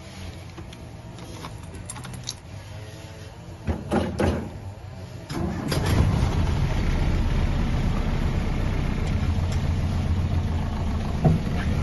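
Land Rover Series III engine on a cold start: a quieter low mechanical sound, then two loud bursts about four seconds in, after which the engine runs louder and steadily.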